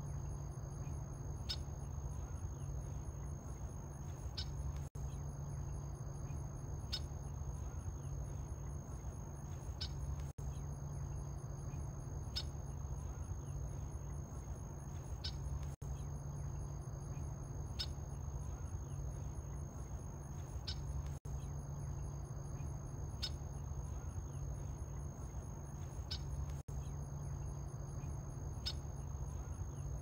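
Steady high insect trill over a low steady hum, with a short sharp chirp about every one and a half seconds. The sound cuts out for an instant about every five and a half seconds.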